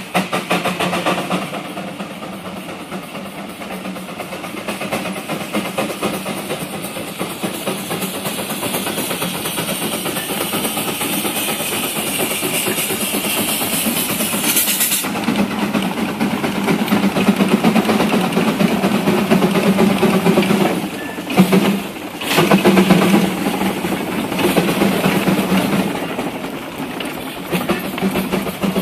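16 hp Russell steam traction engine working under way, its exhaust chuffing in rapid beats, with a loud hiss of escaping steam that stops suddenly about halfway through. The running dips briefly about three quarters of the way in, then picks up again.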